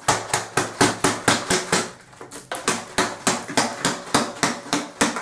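Plastic water bottle partly filled with water, lemon juice and honey being shaken and tapped in quick, regular strokes, about five a second, to loosen honey stuck to the bottom. The strokes break off briefly about two seconds in and again near the end.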